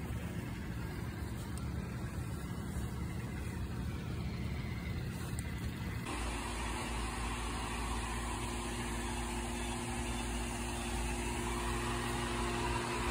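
Steady mechanical hum with background hiss. About six seconds in it switches abruptly to a deeper drone carrying two steady tones.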